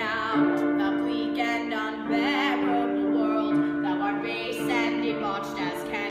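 A woman singing a show tune with vibrato, accompanied by an electronic keyboard playing sustained chords.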